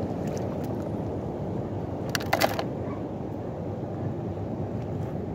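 Steady low rushing noise of wind and surf at the shoreline, with a quick run of sharp clicks about two seconds in.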